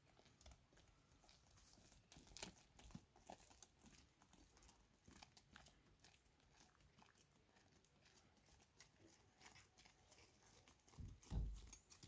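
Faint, scattered footsteps of a person and sheep crunching on dry dirt, with a low thump near the end.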